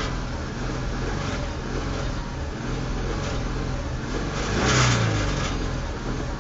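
Car engine idling, with one quick rev that rises and falls about four and a half seconds in as the accelerator pedal is pressed and released.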